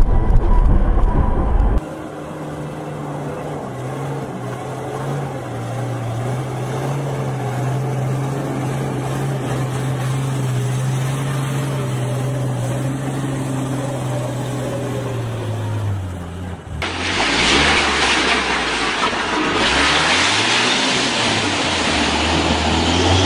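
A loud low rumble for the first couple of seconds, then a heavy dump truck's engine running steadily, its note dropping about fifteen seconds in. After that, water splashes loudly around a UAZ van fording a river, its engine note rising and falling.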